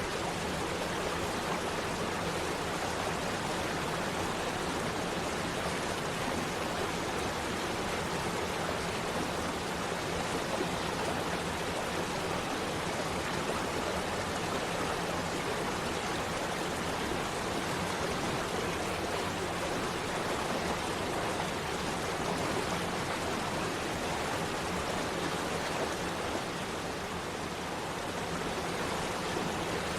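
Waterfall: falling water rushing and splashing in a steady, even wash of noise.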